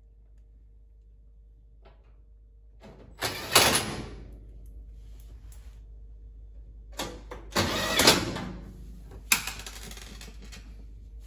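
Cordless drill-driver driving screws into the sheet-metal back panel of an electric range, in three short bursts with the thin metal rattling.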